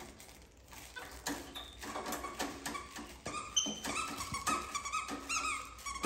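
Capuchin monkey giving short, repeated squeaks and chirps, with scattered light clicks.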